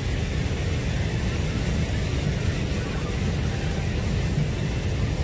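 Wind buffeting the microphone on an open seashore: a steady low rumble with an even hiss of sea and air above it.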